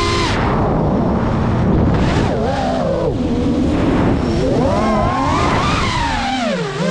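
Brushless motors and propellers of a GEPRC Mark 5 FPV quadcopter whining. The pitch drops sharply just after the start as the throttle is cut, then rises and falls several times as the throttle is worked, over a steady rushing noise.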